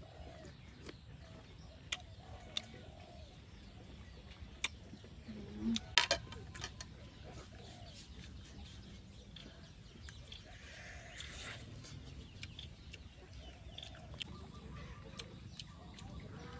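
Chickens clucking in the background, with scattered sharp clicks and crunches of eating fried snake pieces; the loudest is a short cluster of clicks about six seconds in.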